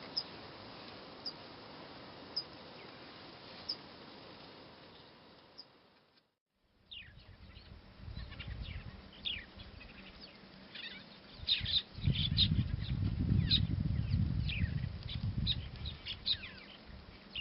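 Wild birds chirping: first a few sharp single chirps about every second over a steady hiss, then, after a brief break, many birds calling at once with quick chirps and short falling notes. A low rumble joins in during the second half.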